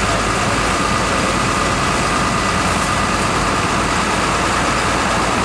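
A work vehicle's engine idling steadily, with a thin steady whine above it.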